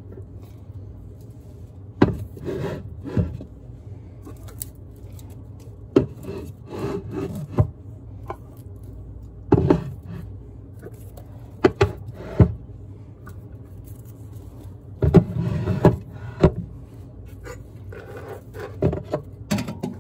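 Canned and packaged food being handled and moved about on pantry shelves: scattered knocks and clatters as items are picked up and set down, with rubbing and rustling in between and a longer rustle about three-quarters of the way through.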